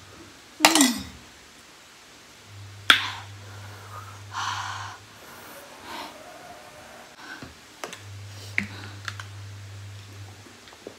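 Tableware being handled on a table: a spoon, bowls and a pot knocking and clinking, with two sharp knocks, the first about half a second in and a louder one near three seconds, then a short rustle and several softer clicks.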